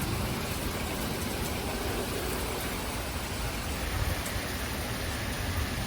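Torrential rain pouring steadily during a severe thunderstorm, with wind gusting on the microphone as a low rumble.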